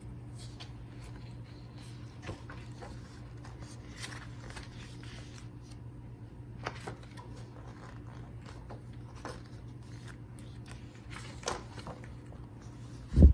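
Pages of a thick photobook being handled and turned: light paper rustles and small taps, over a steady low hum. A single loud thump near the end.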